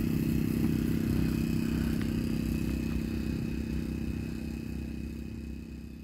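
An engine running steadily at a constant pitch, a low even hum that fades out near the end.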